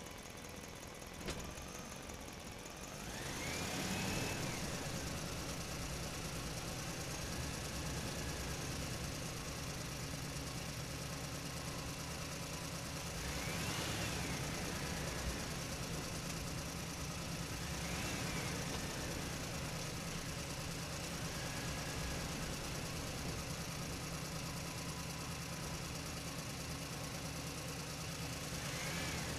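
An engine idling steadily, briefly revving up and back down a few times.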